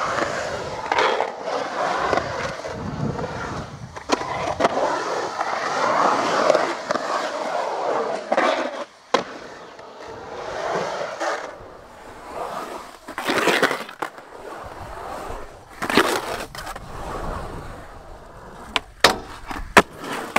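Skateboard rolling and carving on concrete, with long scraping grinds of the metal trucks along coping and ledges. Sharp clacks of the board popping and landing break in now and then, several in quick succession near the end.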